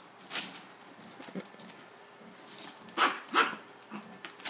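Small dog barking: a short bark just after the start, then two sharp barks in quick succession about three seconds in.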